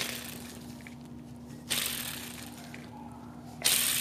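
Old timing-belt tensioner pulley from a Honda B16 engine spun by hand three times, each spin a rough whir that starts suddenly and fades over a second or two. The owner takes the noise for a bearing on its way out.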